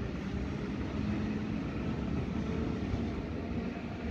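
Electric commuter train rolling past on the tracks: a steady rumble of wheels on rail with a low hum running under it.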